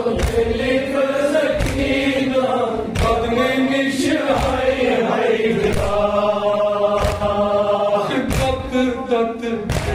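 A male reciter chanting a Kashmiri noha (mourning lament) into a microphone, with a group of men's voices joining in. Dull thuds of hands beating on chests (matam) fall roughly once a second under the chant.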